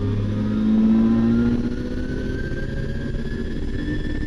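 Nissan RB26 twin-turbo straight-six in an R32 Skyline, heard from inside the cabin, accelerating hard with its pitch climbing steadily as the revs rise.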